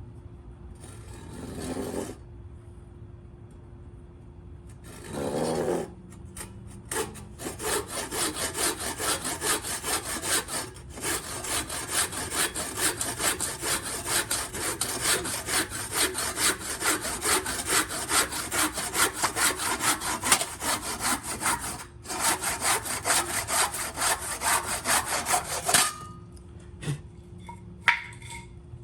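Handsaw cutting wood: two short strokes, then steady back-and-forth sawing at about three strokes a second for some twenty seconds, with two brief pauses. A couple of light knocks near the end.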